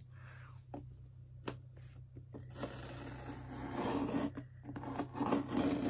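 A small package opener scraping and rasping against a cardboard box as it is worked at the seal, with a few sharp clicks and the scratching growing louder and busier about halfway through; the opener is struggling to cut in.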